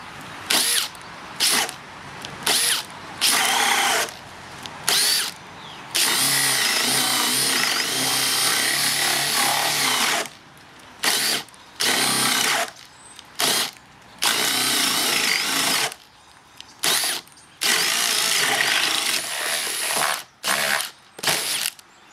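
Cordless drill motor driving a 65 mm bit in high gear, in repeated stop-start runs: short bursts and longer spells of a few seconds. The bit struggles in high gear, which was too much for the drill.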